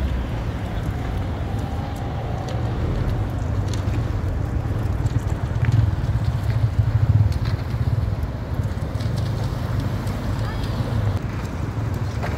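Wind buffeting the phone's microphone: a low, uneven rumble, with road traffic passing on the bridge beneath it.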